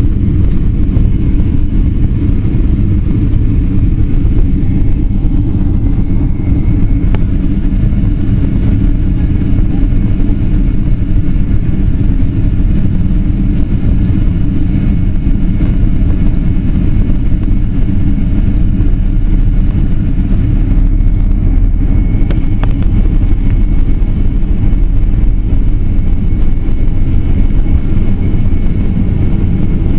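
Steady, loud low rumble of a Boeing 767-400's engines and rushing air heard from inside the passenger cabin during departure, with a couple of faint clicks, one about seven seconds in and another past twenty seconds.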